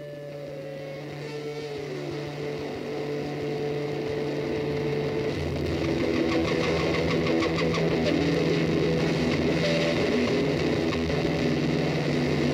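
Background music fading in: an instrumental track with held notes, a bass line coming in about five seconds in and a steady beat joining soon after.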